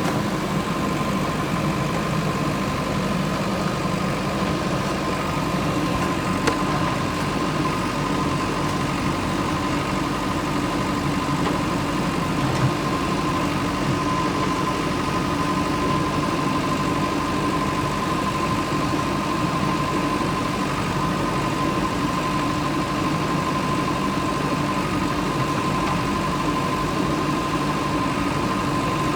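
JCB backhoe loader's diesel engine running steadily, with a steady high whine over the engine note.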